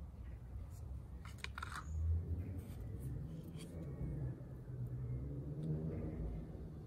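Tarot cards being handled in a flip-through: a few quick clicks and soft slides of card stock, mostly in the first half. A low hum wavers underneath through the middle.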